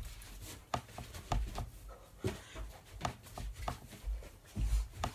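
Footsteps and stamps of a person dancing on a floor, with no music: irregular soft thuds and sharp taps, a couple a second.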